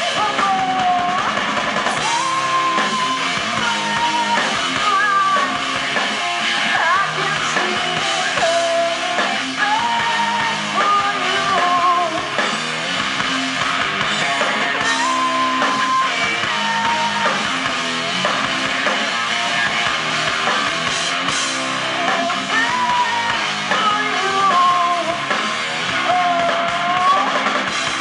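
Rock band playing live through a PA: a singer carries a melody over distorted electric guitars and a drum kit.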